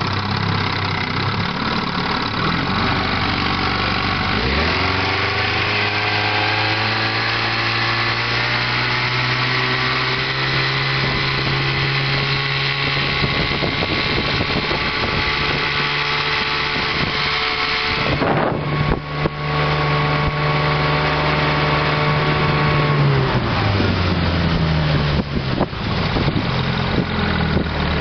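1958 Evinrude Sportwin 10 hp two-stroke twin outboard motor running under way. About four seconds in the throttle opens and the pitch rises to a steady high speed; a little after twenty seconds the throttle is eased back and the pitch falls.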